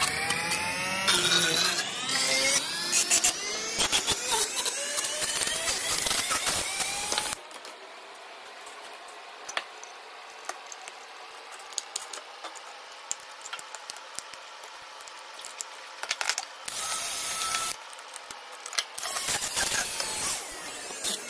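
Handheld rotary tool grinding and sanding a 3D-printed plastic mask: a high motor whine whose pitch shifts as it works, loud for about the first seven seconds. It then drops to a quieter hiss with scattered scratches, and comes back loud in short spells near the end.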